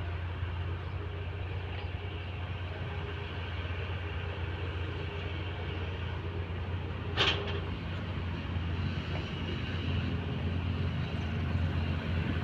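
Heavy earthmoving machinery's diesel engine running steadily with a low drone, with one sharp knock about seven seconds in.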